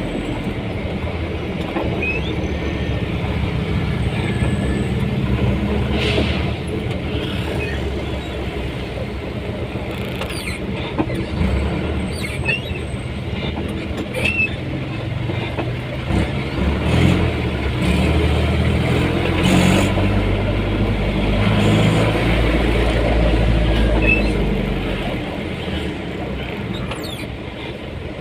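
Motor vehicle engine running with road and traffic noise, the engine hum rising and falling in level.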